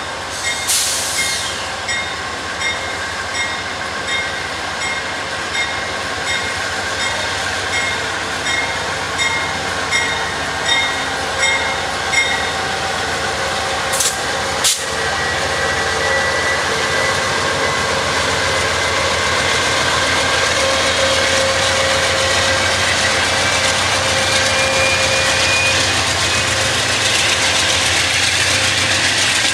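Amtrak P42DC diesel-electric locomotive pulling out with a passenger train. Its bell rings steadily, about one and a half strokes a second, for roughly the first twelve seconds. Two sharp clicks follow, then the engine runs louder with a low rumble and a slowly rising whine as the train gathers speed.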